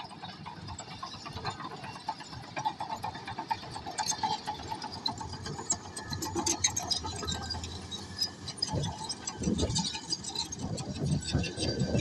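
Komatsu D155A crawler bulldozer working loose soil: the diesel engine runs under load, swelling louder several times in the second half, with a continual clicking and rattling of the steel tracks.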